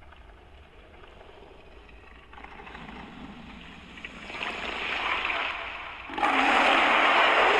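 Custom sound effect: a steady rushing noise that builds in stages and jumps much louder about six seconds in.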